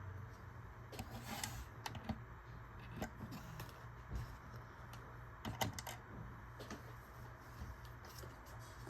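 Faint, irregular clicks and taps of plastic Lego pieces being handled and pressed into place on the model.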